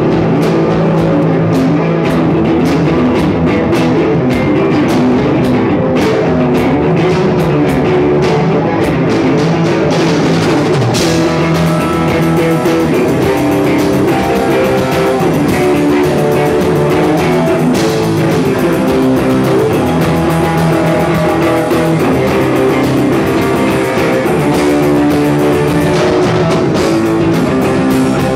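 Rock band playing live, with guitar and drum kit, recorded from a poor position in the room.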